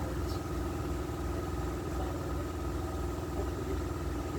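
A machine running with a steady mechanical hum and a low rumble, holding an even pitch throughout.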